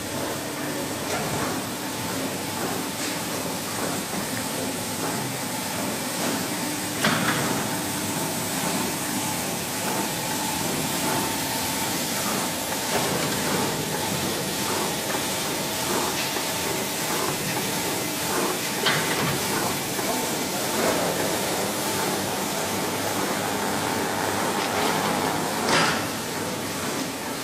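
Industrial carpet washing machine running: a steady mechanical hum and hiss with a few louder knocks.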